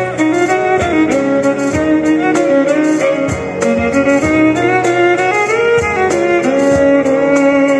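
Violin playing a pop-song melody over a steady drum beat, with strikes on a cajon-style box drum and a small drum. Sustained low accompaniment sits underneath.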